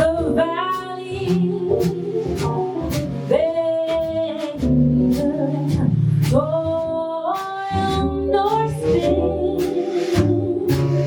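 Live small jazz ensemble playing a slow ballad: drums with cymbal strikes, bass, piano and guitar under a lead melody that scoops up into long held notes.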